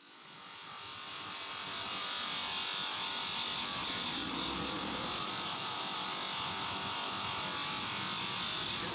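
Bench grinder motor with a foam polishing pad running steadily while a plastic headlight lens is buffed against the spinning pad, polishing the oxidised lens clear. The whirr grows louder over the first two seconds, then holds steady.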